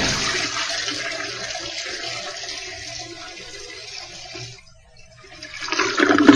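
Rushing water that starts loud and fades away over about four and a half seconds, then surges again near the end.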